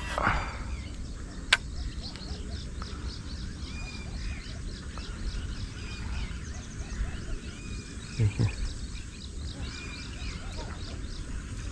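Birds chirping and calling over a steady low rumble, with one sharp click about a second and a half in and two dull thumps about eight seconds in.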